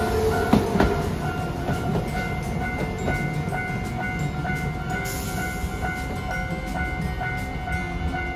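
A Hiroden Green Liner tram passes close by in the first second, its wheels clacking and its motor whine rising. Throughout, a level-crossing warning bell keeps ringing in short, evenly repeated electronic tones.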